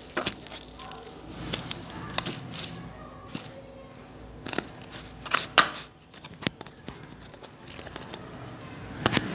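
Glitter slime pressed and squished by hands, with a clear plastic cup pushed down into it, giving scattered sharp pops and crackles. The loudest cluster of pops comes about five and a half seconds in.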